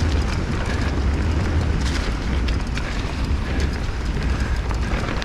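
Wind rumbling and buffeting against the camera microphone during a fast trail ride, with scattered clicks and rattles from the bike's tyres and frame over rocks.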